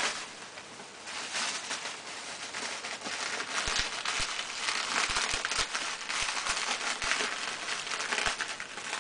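Plastic bubble wrap crinkling and rustling as it is pulled and bunched by hand off a wrapped clock. Scattered soft knocks sound among the crackle in the second half.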